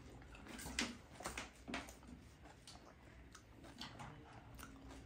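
Faint close-up chewing of a whole panipuri in the mouth: irregular crunches of the crisp puri shell, most of them in the first two seconds, then softer chewing.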